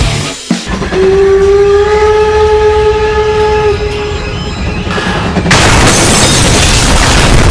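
Steam locomotive's whistle sounding one long steady note over a low rumble, then about five and a half seconds in the loud rush of the train passing close by.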